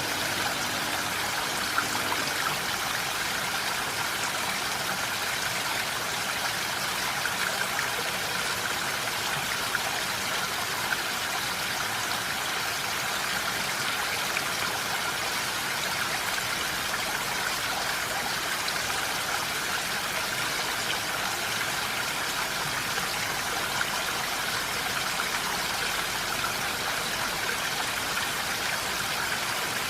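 Steady rain falling, an even hiss of drops with a few slightly louder taps here and there.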